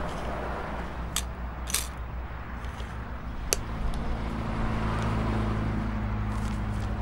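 A few sharp metallic clinks in the first half as gold bangles are set onto the pan of an electronic jewellery scale, over a steady hum of street traffic that grows a little louder after the midpoint.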